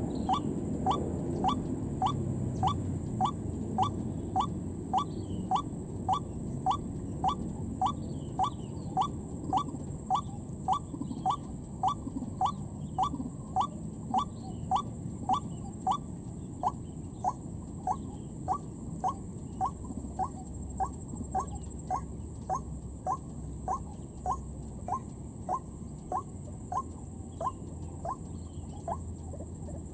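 White-breasted waterhen call, a short falling note repeated steadily about twice a second without a break, the call used as a lure for trapping waterhens.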